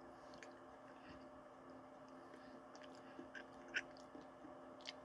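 Quiet eating sounds of someone spooning ice cream with cookie pieces from a bowl: soft mouth sounds and a few small clicks, the sharpest about four seconds in.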